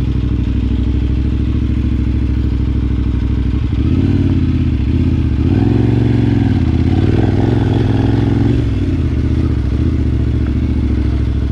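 Adventure motorcycle's engine running at low revs while the bike rolls over a rough dirt track. About four seconds in, the revs rise and fall a few times, peaking around six to eight seconds, then settle back to a steady low run.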